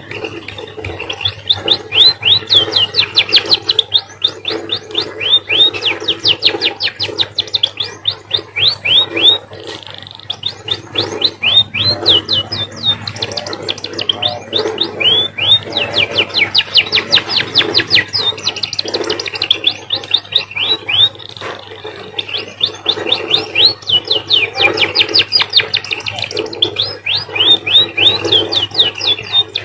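An emprit (munia finch) singing a canary-like song learned from canaries kept beside it. Long trills of rapid, short falling notes come in phrases broken by brief pauses.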